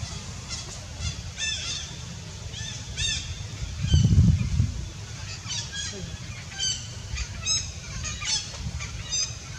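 Short, high-pitched animal calls repeating about once or twice a second, at differing pitches, from more than one caller. A brief low rumble about four seconds in is the loudest thing.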